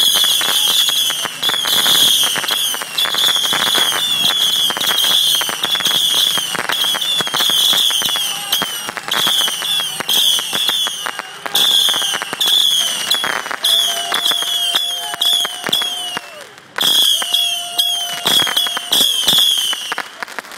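Ground firework fountain burning: a dense, crackling spray with short falling whistles, several a second. It breaks off briefly about 17 seconds in, then resumes and dies away at the end.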